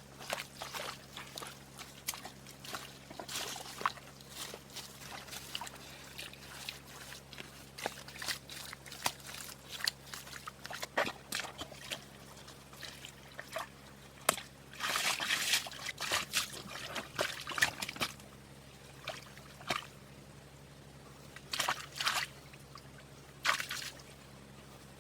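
Water sloshing and dripping in small, irregular splashes, with a busier, louder stretch about two-thirds of the way through.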